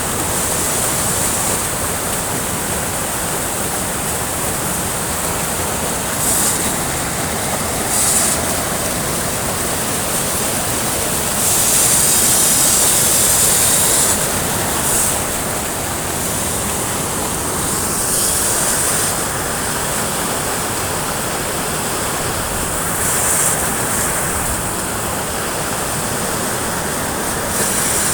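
Jogini waterfall's water crashing down in a steady, loud rush, with brief brighter surges every few seconds and a longer one about halfway through.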